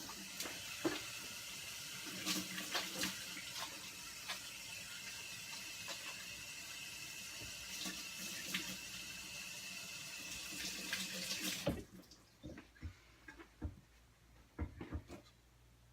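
Kitchen tap running into a sink for about twelve seconds, then turned off suddenly; a few light knocks and clicks follow.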